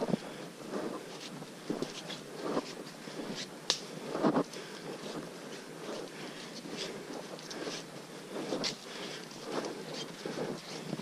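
Footsteps of hikers walking on a muddy dirt trail, a step about every half second, with rustling and a few sharp clicks from gear being carried.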